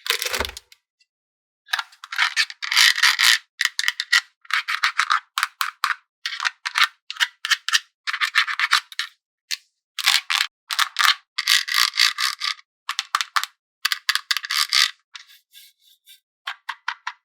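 A knock, then quick runs of dry rattling and scraping in short bursts with brief gaps, as toys and their packaging are handled.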